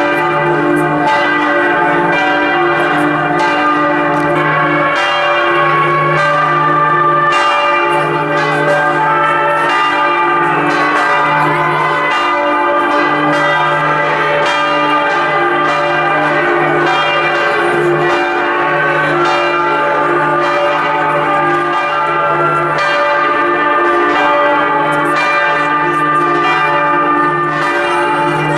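Several church bells in the basilica's bell tower ringing together in a full peal. Repeated strikes, roughly one a second, land over a continuous overlapping ring, with a deep bell sounding on and off underneath.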